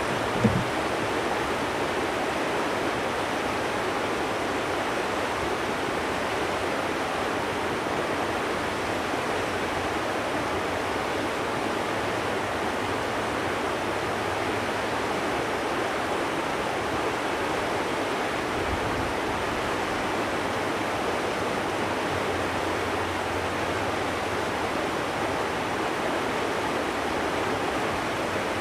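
Steady rushing of flowing river water, even and unbroken, with a couple of short knocks just after the start.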